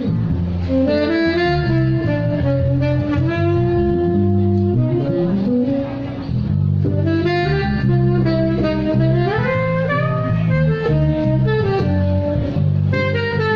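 Live jazz saxophone playing a flowing melody, with a rising run about nine seconds in, over a walking bass line.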